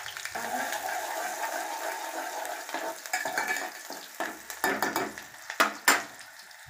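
Chopped onion sizzling in hot oil in an aluminium pot as it is fried for a tempering, stirred with a spoon. Toward the end come several sharp metal clinks of the spoon against the pot.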